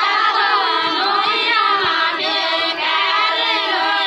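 Group of women singing a deuda folk song together, unaccompanied, several voices overlapping on drawn-out, wavering notes.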